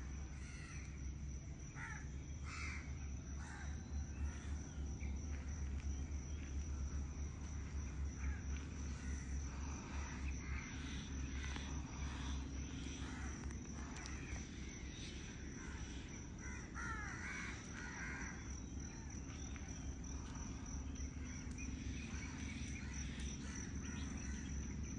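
Wild birds calling in scattered short calls over a steady high-pitched whine and a low hum.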